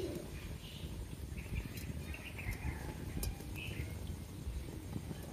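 Faint outdoor ambience: scattered short chirps over a low rumble, with a couple of light clicks.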